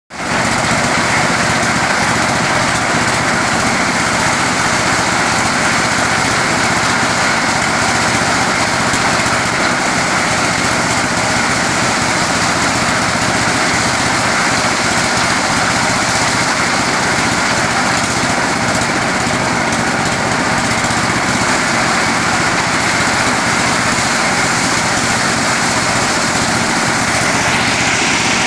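Motorized corn sheller running: a small engine hum under a dense, steady, loud high-pitched rattling hiss from the threshing drum. The high hiss eases a little near the end.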